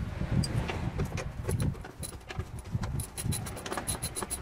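Hand tools clinking and knocking on metal in a car's engine bay, then a ratchet wrench clicking rapidly near the end as a rusty nut is worked loose.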